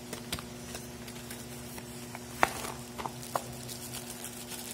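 Hands handling a small cardboard box and plastic packaging: a few light clicks and taps, with one sharper knock about two and a half seconds in, over a steady low hum.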